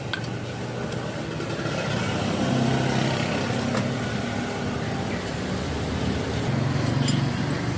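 Traffic noise: a motor vehicle engine running close by, over a steady hiss, swelling about two seconds in and again near the end.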